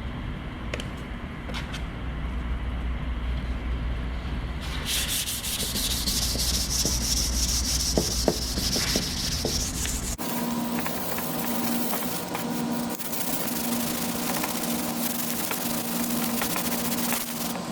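400-grit wet-or-dry sandpaper rubbed by hand over primer in repeated dry-sanding strokes, a steady scratchy hiss. From about ten seconds in, a steady, pulsing hum runs underneath.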